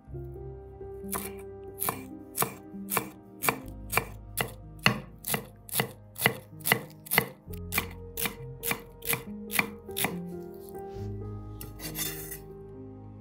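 Knife chopping food in steady, even strokes, about two a second, over soft background music. A brief scraping sound follows near the end.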